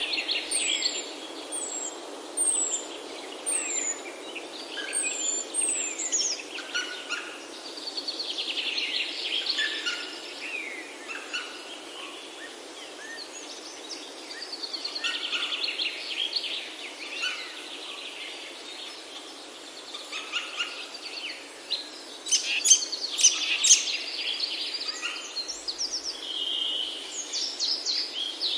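Several songbirds singing and calling at once over a steady background hiss, with a run of short, high, falling whistles in the first few seconds and a burst of louder, sharper calls a little past two-thirds of the way through.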